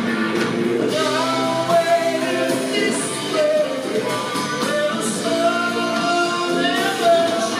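Live rock band playing loudly: electric guitar, electric bass and drum kit, with a man singing lead.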